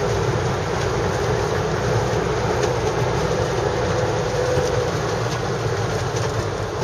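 Steady engine and tyre noise heard inside the cab of an Iveco Daily light truck cruising on tarmac, with a steady hum running through it.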